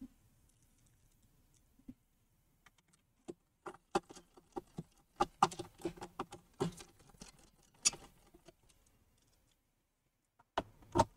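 Scattered small clicks and taps of screws and a screwdriver being handled on an all-in-one PC's chassis as its screws go back in, with a couple of louder clicks near the end.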